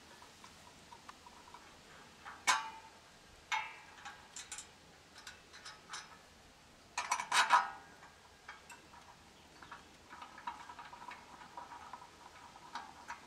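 Steel Smith machine frame parts and bolts clinking and knocking as they are handled and fitted together: scattered sharp taps, some with a short metallic ring. The loudest cluster of knocks comes about seven seconds in, and a lighter rattle follows near the end.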